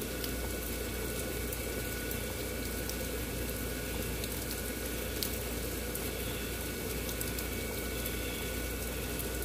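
Steady rain falling: an even hiss with occasional sharp drip ticks.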